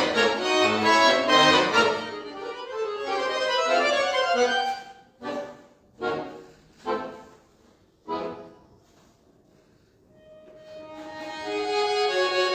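Solo accordion playing a slow classical piece: full sustained chords at first, then four short separate chords, a brief pause, and a new quiet phrase swelling back in near the end.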